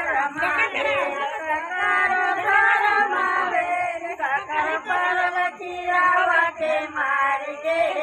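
Many voices singing or chanting together, overlapping and loud without a break.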